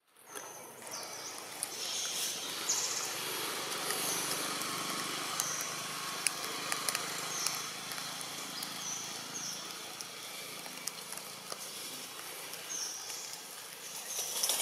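Outdoor ambience under a tree canopy: a steady background hiss with short, high chirps recurring every second or two and a few faint clicks.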